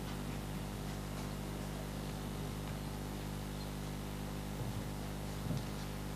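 Steady low hum of room noise with no speech, with a couple of faint soft knocks a little before the end.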